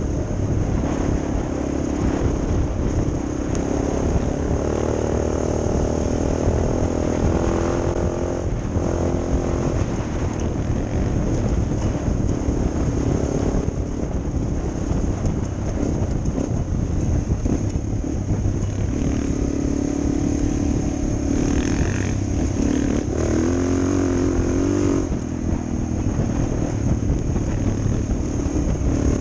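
Suzuki DR 400 dual-sport motorcycle's single-cylinder engine running under way, its pitch rising and falling with the throttle, with wind noise over it.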